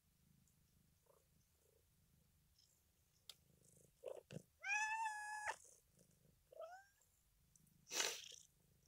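Domestic cats at their food: a cat gives one long, steady meow in the middle, then a short meow that rises in pitch, and near the end a short hiss.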